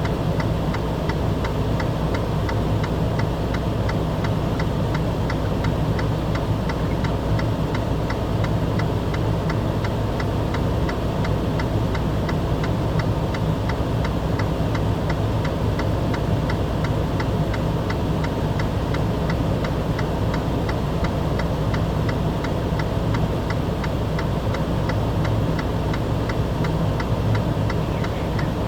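An engine idling steadily, with a fast, even ticking over it.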